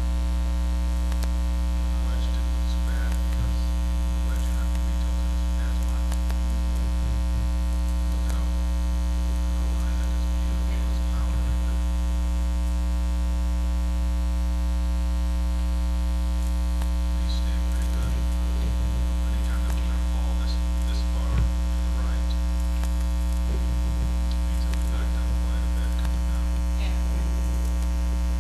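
Steady electrical mains hum: a constant low buzz with a stack of higher overtones that never changes, and one faint knock about three-quarters of the way through.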